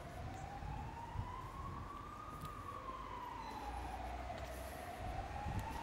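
A siren wailing in a slow rise and fall: it climbs for about two seconds, sinks back, then starts climbing again near the end, over a low rumble.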